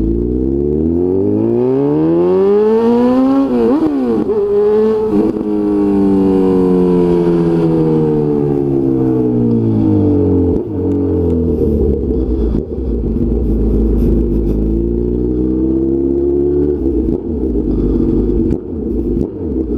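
Honda CB1000's inline-four engine pulling away hard. Its revs climb and drop sharply at two quick upshifts in the first five seconds, then fall away as the bike slows. The revs climb again about twelve seconds in and die back near the end.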